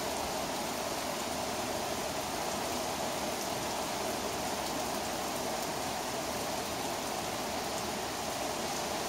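Heavy rain pouring steadily during a thunderstorm, an even rushing noise with faint scattered ticks of drops.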